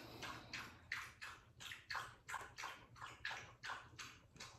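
A dog lapping water from a bowl: faint, evenly spaced wet laps about three a second, stopping just before the end.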